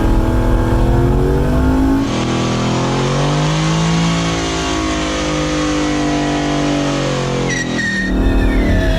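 Chevrolet El Camino's engine running hard during a tire-smoking burnout, its pitch swelling and easing, with a high tire squeal near the end. The sound changes abruptly about two seconds in and again near the end.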